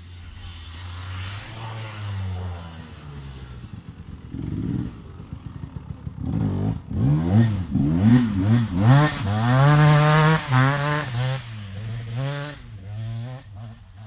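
A 250cc two-stroke dirt bike engine, running low at first, then revved hard in a quick run of throttle blips from about halfway. The revs rise and fall sharply several times a second, are loudest a little past the middle, and ease off near the end.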